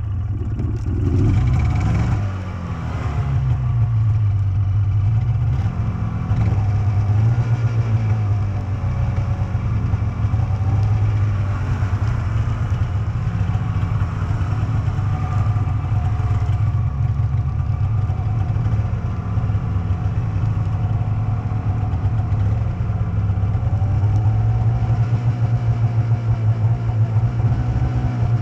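Snowmobile engine running under way; its note dips and rises in the first few seconds, then holds steady at cruising speed.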